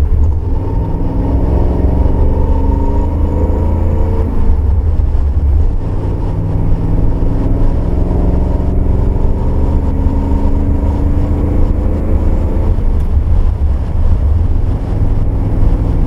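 Maserati Khamsin's 4.9-litre V8 running under way at a steady cruise, its pitch rising and falling gently with road speed, under a heavy low rumble of wind and road noise on a camera mounted outside on the car's flank.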